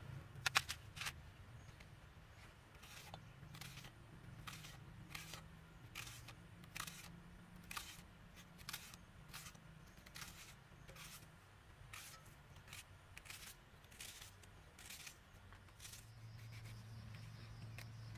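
Kitchen knife peeling and slicing onions held in the hand: a string of crisp cuts, irregular, about one or two a second, over a low steady hum.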